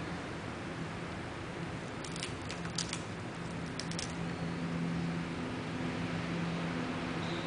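Dutch rabbit tugging at and biting a lettuce leaf hung from a metal clip: a few short, crisp clicks and rattles in three quick groups between about two and four seconds in, over a steady low hum.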